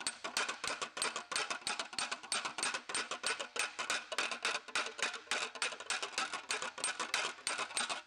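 A hand hammer tapping rapidly on a TIG butt weld in thin 0.060-inch aluminium sheet: a fast, steady run of light metallic taps. The taps knock the weld bead down flat into the soft, malleable aluminium.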